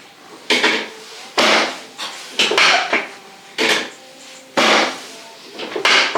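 Chiropractic adjustment on a treatment table: a series of about seven short, sharp knocks with a brief rattle after each, unevenly spaced roughly a second apart.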